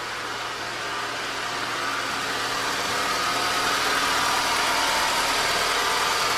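2004 Honda Civic's manual transmission grinding with a steady whine over the idling engine, clutch released, growing a little louder over the first couple of seconds. This is the sign of a worn transmission input shaft bearing.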